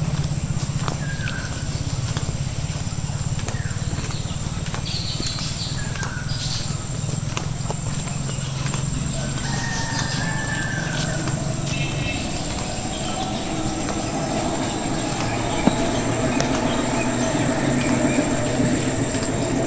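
Rural outdoor ambience: birds call in short chirps now and then over a steady low hum. About two-thirds of the way in, a louder mid-pitched hum builds up.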